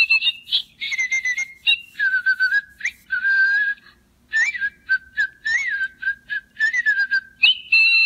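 Little Live Pets Tiara Twinkles electronic toy bird playing its chirps and whistled bird song through its small speaker. The song comes in several short phrases of quick chirps and gliding whistles, with brief pauses between them.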